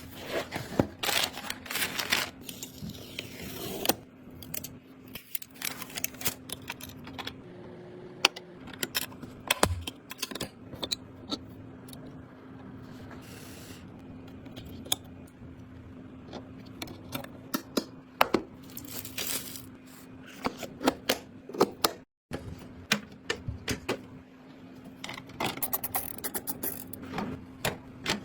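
Irregular light clicks, taps and scrapes of PC hardware being handled and fitted together, over a steady low hum. The sound cuts out for an instant a little after twenty seconds.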